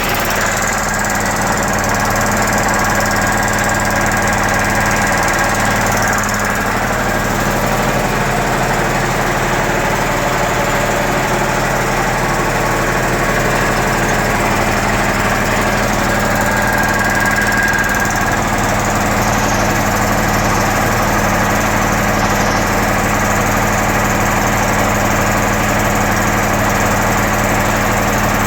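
United 5 HP air compressor, driven by a 3.7 kW four-pole electric motor, running steadily.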